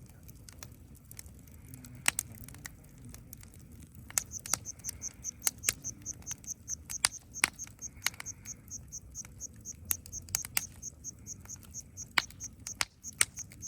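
Wood fire burning in a campfire stand, crackling with irregular sharp pops. About four seconds in, an insect starts chirping in a steady, fast, high-pitched rhythm of about four chirps a second.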